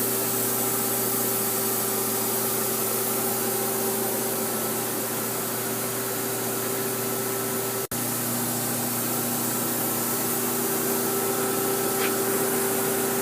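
Steady machine hum from a powered-up Haas SL-20T CNC lathe, several steady tones over a hiss. The sound drops out for an instant about eight seconds in, after which a lower tone joins the hum.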